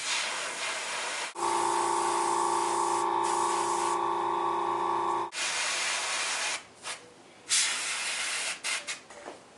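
Airbrush spraying paint in bursts of hissing air. From about a second in, a steady hum runs under the hiss for about four seconds, then the hiss comes in shorter separate bursts, briefer near the end.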